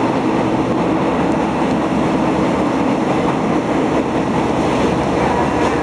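Steady, loud running noise of an old electric commuter train in motion, heard from inside the carriage.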